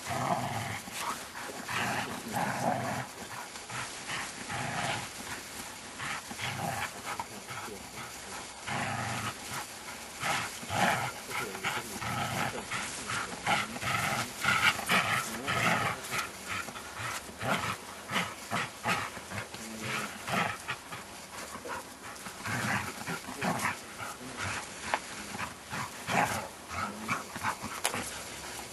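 Groenendael (black Belgian shepherd dog) making short, irregular vocal sounds as it tugs and wrestles on a rag.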